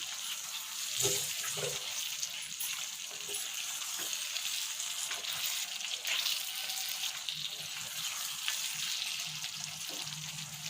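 Chicken pieces sizzling and bubbling in their own released juices in a cast iron skillet, with a spatula scraping and knocking against the pan now and then as it is stirred.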